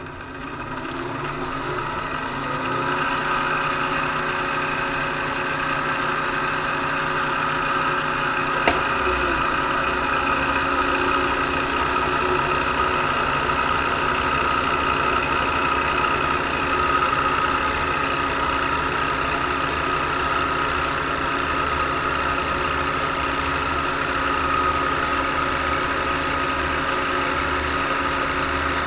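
Milling machine fly cutting a 6061-T6 aluminium plate with a Don Cossitt fly cutter, taking a light finishing pass of a few thousandths through WD-40. It is a steady machining drone with held tones that grows louder over the first few seconds, with one sharp click about nine seconds in.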